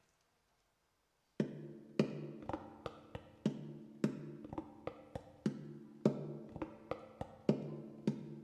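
Instrumental music starting about a second and a half in: a song intro of sharply attacked plucked notes, about two a second, over held pitched tones.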